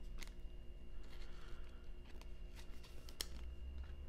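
Soft plastic rustling and small ticks of a trading card being slid into a thin clear plastic penny sleeve, with one sharper click about three seconds in.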